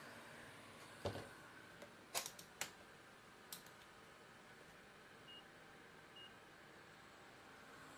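Quiet workbench with a few sharp clicks and taps of small tools, then two short high beeps about a second apart.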